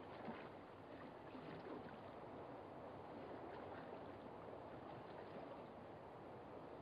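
Faint, steady wash of gentle water lapping at the shore.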